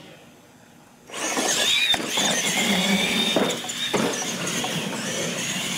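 Radio-controlled monster trucks driving on a concrete floor: electric motor and gear whine with a steady high tone over tyre noise, starting suddenly about a second in. There are a few sharp knocks.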